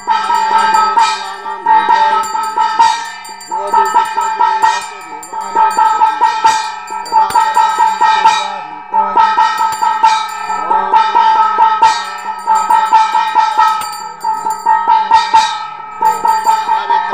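Brass hand bell rung rapidly and continuously during the aarti, in bursts of quick strokes a second or two long, its ringing tone held between them.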